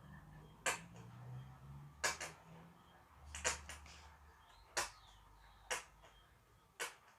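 A plastic glue bottle being emptied into the slime bowl: a series of sharp taps or clicks, about one a second, some in quick pairs.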